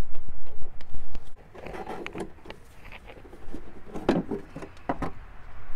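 Plastic engine cover being worked loose and pulled off the engine: rubbing and creaking plastic with scattered knocks, the sharpest a cluster about four to five seconds in. A low rumble fills the first second or so.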